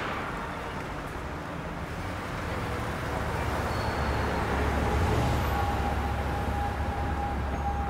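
Street traffic noise: a steady rumble of passing vehicles that grows slowly louder, heavier in the low end from about halfway through. A faint steady whine joins at the same point.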